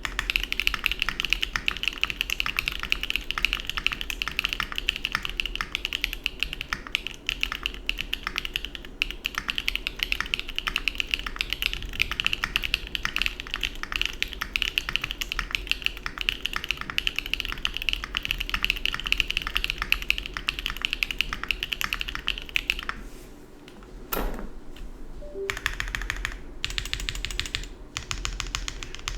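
Mode Envoy mechanical keyboard with EPOMAKER Peace Lily switches, Aifei doubleshot ABS keycaps and an FR4 plate, typed on fast and continuously, with a clocky keystroke sound. Near the end the typing pauses briefly, then resumes more sparsely.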